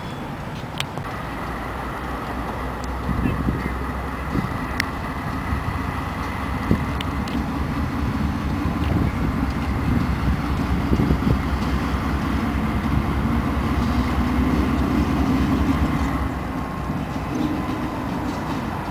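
Union Pacific GE AC4400CW (CW44AC) diesel-electric locomotive running light at low speed, its engine rumble growing louder as it approaches and easing a little near the end. A thin steady high whine runs through it, with a few sharp clicks.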